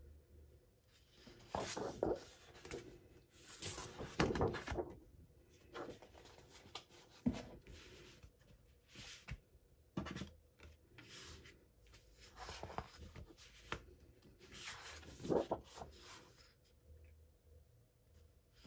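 Sheets of 12 by 12 patterned scrapbook paper being slid and flipped over on a desk: a series of paper swishes and rustles, one every second or two.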